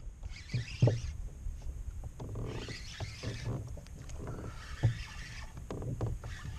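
Spinning reel being cranked in bursts of about a second while reeling in a hooked fish, with a few short knocks.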